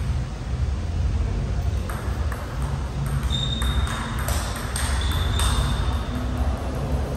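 Table tennis rally: the ball clicks back and forth off paddles and the table, starting about two seconds in and coming quicker in the middle, with two short high squeaks and a steady low hum underneath.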